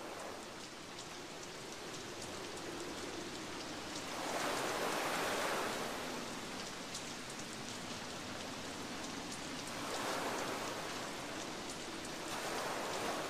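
Steady rain with a patter of drops, fading in at the start. The wash swells louder about four seconds in, again about ten seconds in, and once more near the end.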